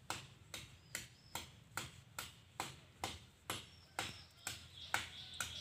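Steady rhythmic knocking, a sharp knock a little more than twice a second, over a low hum, with a faint high steady tone coming in near the end.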